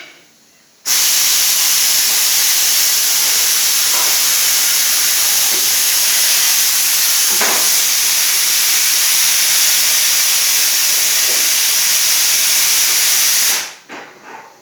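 Loud, steady hiss that starts abruptly about a second in and cuts off near the end, with a few faint knocks beneath it.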